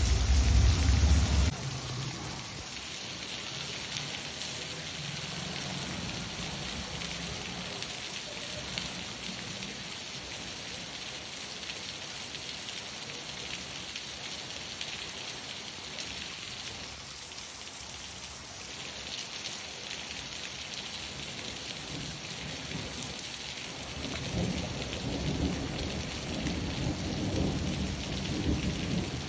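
Steady rain falling, with thunder rumbling low in the first second or so and again over the last five seconds.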